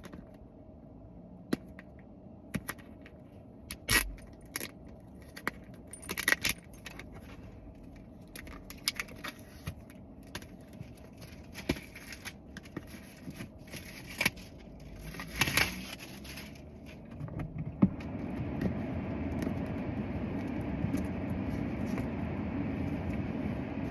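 AirPods Max packaging being opened by hand: scattered clicks, taps and scrapes of the cardboard box, its tabs and wrapping. For the last several seconds a steady rushing noise also runs underneath.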